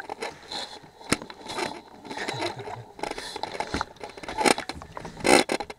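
Irregular scrapes and knocks as a landing-net pole is handled against a boat's side, with the loudest knock near the end.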